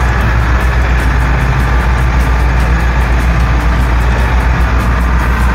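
A boat's engine droning steadily, heard inside the cabin, under the rush and splash of choppy water against the hull.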